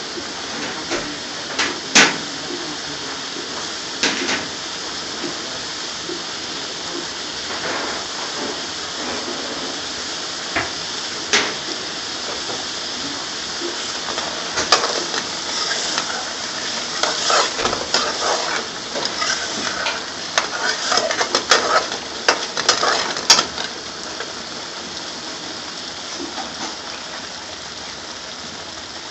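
Curry sauce sizzling in a pan with a steady hiss, the ghee and single cream just added. Now and then a metal utensil knocks against the pan, with a busy spell of stirring clatter from about a quarter of a minute in.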